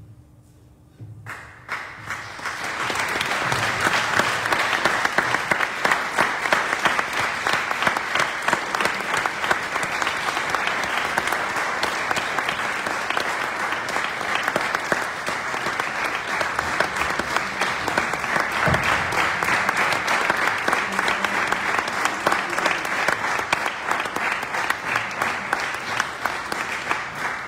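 An audience breaks into applause about a second in after a brief hush, building within a couple of seconds into steady, dense clapping that carries on throughout.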